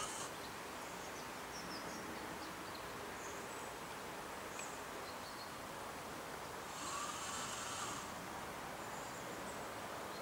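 Outdoor pond ambience: a steady background hiss with scattered short, high bird chirps, and one louder call lasting about a second, about seven seconds in.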